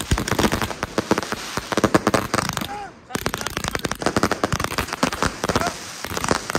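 Fireworks battery (cake) firing a rapid run of shots, pausing briefly about three seconds in and then carrying on.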